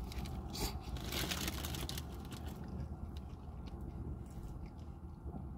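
A person biting into a pastry pie and chewing: short crunches of the crust and crackling of its paper bag in the first two or three seconds, then quieter chewing. A low steady hum runs underneath.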